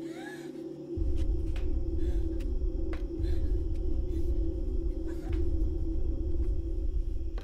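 Suspense soundtrack of a horror film: a steady low drone, joined about a second in by a loud, deep rumble that holds, with a few faint clicks over it.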